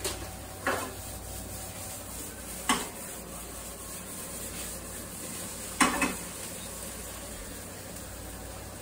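Ground turkey being stirred and broken up in a frying pan over a faint steady sizzle, with a utensil clacking sharply against the pan three times, the last clack doubled.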